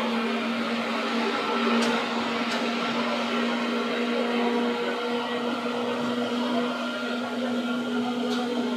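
Seibu 2000 series electric train running at a steady speed: a constant motor hum over wheel-on-rail running noise, with a few brief clicks.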